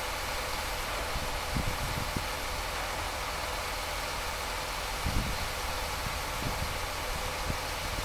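An engine idling steadily with a hiss over it, and a few faint, uneven thumps, the clearest about five seconds in.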